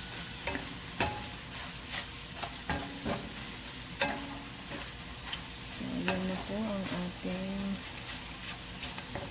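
Wooden spatula stirring and scraping a bitter gourd and bacon stir-fry in a metal pan over a steady sizzle, with irregular knocks of the spatula against the pan.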